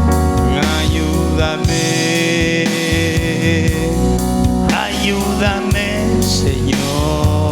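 Live church worship band music playing an instrumental passage between sung lines, with sustained keyboard chords, bass and drums.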